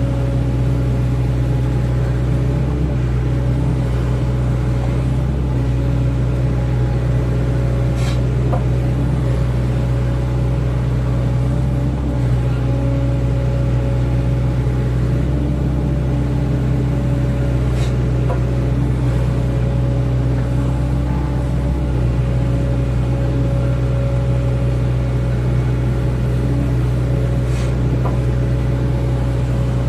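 Excavator's diesel engine running steadily at constant speed while the machine works, an unbroken hum with a steady pitch.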